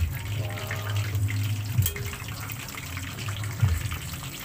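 Hot oil sizzling and bubbling around a large piece of boiled pork deep-frying in a wok, over a steady low hum. Metal tongs knock against the pan twice as the meat is turned.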